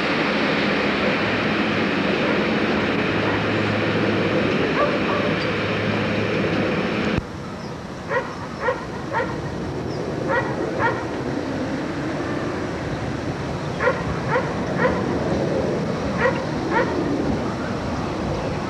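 Steady rushing noise of a passenger train running past, cut off abruptly about seven seconds in. Then, over a quieter rumble, a dog barks in short bursts of two or three, four times.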